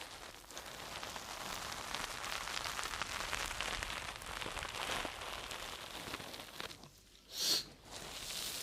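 Dense, close-miked crackling and rustling, an ASMR trigger sound, with a brief high hiss about seven and a half seconds in.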